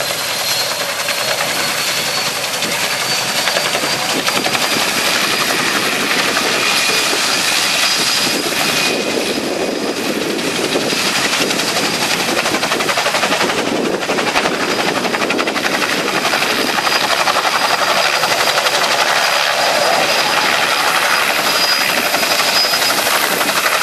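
Bell 47G helicopter running with its main rotor turning: a rapid, continuous chopping over engine noise, with a thin high whine that climbs slightly in pitch.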